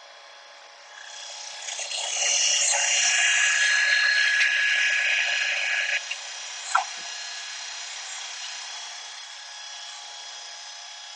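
New Holland Workmaster 25S diesel tractor running at high throttle while the loader and backhoe hydraulics are worked. It swells into a louder, whining stretch from about one second to six seconds in, then settles back to a steadier run, with one short sharp clank or squeak about seven seconds in.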